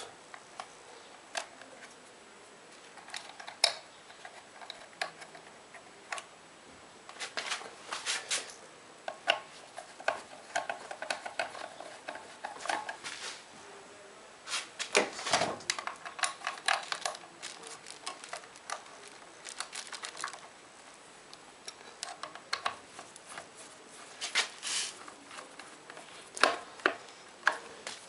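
Scattered small clicks, taps and light rattles of hands fitting a motorcycle headlight unit back into its housing, coming in irregular clusters with short pauses between.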